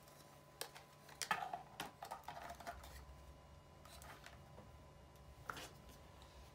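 Faint plastic clicks and taps as the battery compartment and back armour plate of a 1/4-scale RoboCop figure are closed up and fitted back on: a scattered run of clicks in the first three seconds, and one more near the end.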